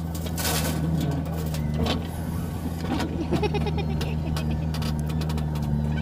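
Diesel engines of a JCB backhoe loader and a Massey Ferguson 1035 DI tractor running steadily. A rush of soil pours into the steel tractor trolley near the start, and later come scraping and clattering as the backhoe bucket digs into the earth.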